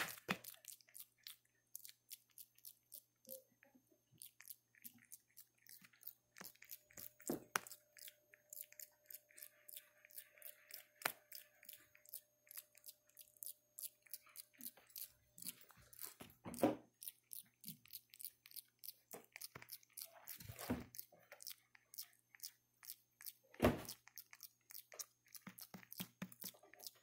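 Quiet, irregular soft clicks and taps close to the microphone, with a few louder knocks scattered through.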